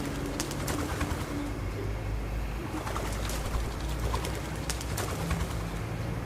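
Feral pigeons cooing, over a steady low rumble with scattered sharp taps.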